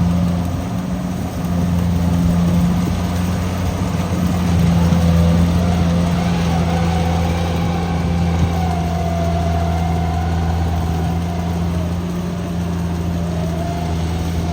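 Farm machinery engine running steadily at a constant speed, a loud, even low drone.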